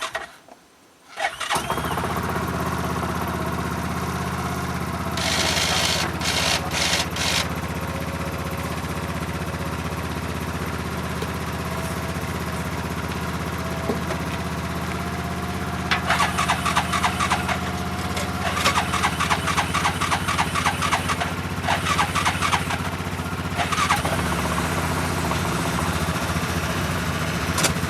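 ATV engine starting about a second in and then running steadily, with bursts of rattling, clattery noise a few seconds later and again past the middle.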